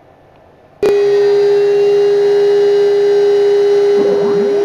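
Homemade CNC router's spindle motor cutting in suddenly about a second in and then running at speed with a steady high whine. Near the end, a second tone glides up and down over it as the axis motors move the cutter into position.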